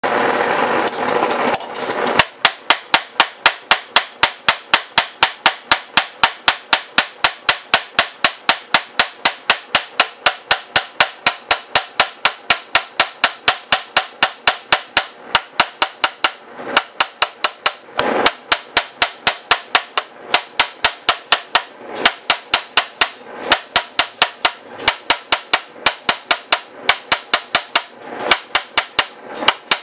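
Hand hammer striking red-hot steel bar stock on a small steel anvil, drawing out a square awl: fast, even blows about three to four a second with a few short pauses. The first two seconds hold a steady rushing noise that stops as the hammering begins.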